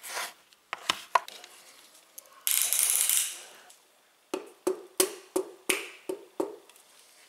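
A piston fitted with new rings being tapped down through a ring compressor into an aluminium engine block's cylinder with the handle of a mallet: a quick run of about eight sharp taps, each with a short metallic ring. Before the taps there is a loud hiss lasting about a second, and a few light clicks near the start.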